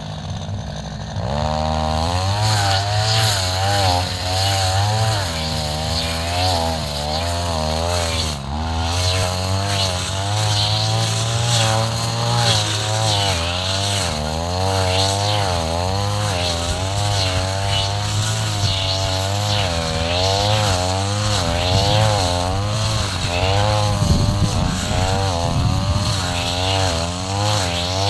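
Two-stroke brush cutter engine running at high throttle while cutting tall grass. It speeds up sharply about a second and a half in, and its pitch keeps dipping and recovering as the blade bites into the grass.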